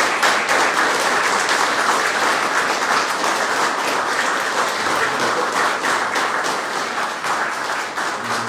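Audience applauding, a dense steady clapping that eases off slightly near the end.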